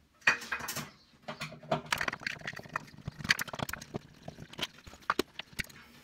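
Screwdriver taking out the screws of a plastic pull-cord light switch mounting base in a ceiling and the base coming free: irregular clicks, scrapes and small taps of metal on screws and plastic.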